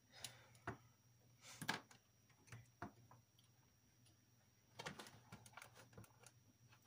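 Near silence, with a few faint clicks and knocks from a multimeter and its test probes being handled on a workbench, over a faint low hum.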